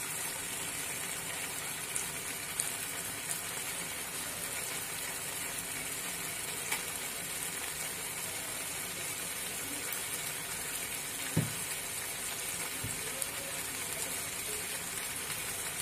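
Yogurt-marinated chicken in its gravy simmering in a nonstick kadai, a steady sizzle and bubbling with a few small pops.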